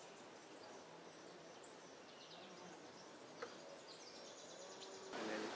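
Faint outdoor ambience with birds chirping now and then in the background. There is one small click about three and a half seconds in.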